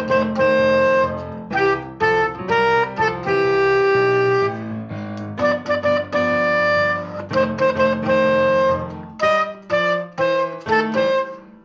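Soprano saxophone playing a jazzy melody of held and quick notes over a low backing accompaniment. The phrase ends near the close.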